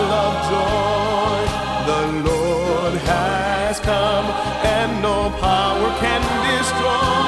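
Choir and orchestra performing a Christmas choral anthem: sustained singing with vibrato over held bass notes and percussion hits.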